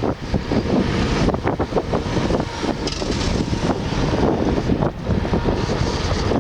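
Car driving along a city street: steady road and engine noise with wind buffeting the microphone.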